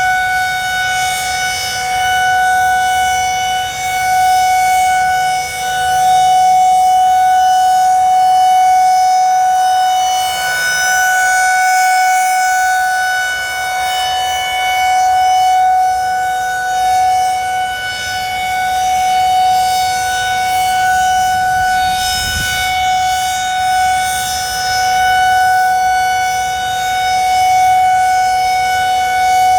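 Federal Signal 2001-SRNB electromechanical siren held at full speed, sounding one loud steady wail at a constant pitch. Its level swells and fades slowly as the rotating horn sweeps around.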